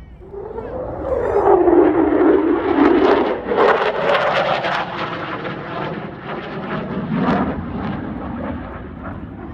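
F-35A Lightning II jet passing by: its single turbofan engine swells about a second in, is loudest over the next few seconds with its pitch falling as it goes past, then fades.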